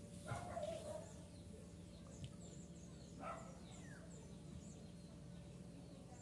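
Two-week-old kittens mewing: a short high mew just after the start and another about three seconds in, with faint high bird chirps in the background.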